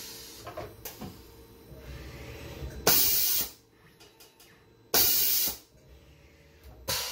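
Tormach 1100MX automatic tool change: the pneumatic power drawbar gives two sharp hisses of air about two seconds apart, each about half a second long, as it releases and clamps the tool. Light mechanical clicks and a low motor hum come from the carousel and spindle head moving between them. The change runs smoothly, with no popping as the spindle rises off the pull stud, the drawbar forks freshly coated with anti-seize.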